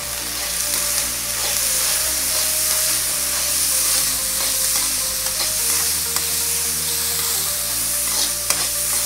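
Chopped capsicum, onion and sweet corn sizzling steadily as they are stir-fried in oil in a kadhai. A metal spoon scrapes and taps against the pan a few times, the sharpest tap near the end.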